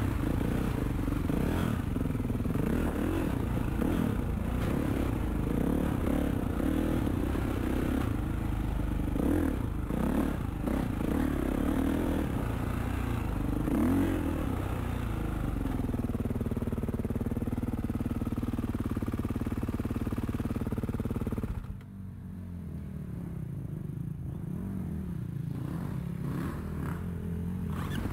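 Dirt bike engine running while ridden, its note rising and falling with the throttle, with rattling from the bike over rough ground. About three-quarters of the way through, the engine note drops suddenly to a lower, quieter running and then slowly builds again.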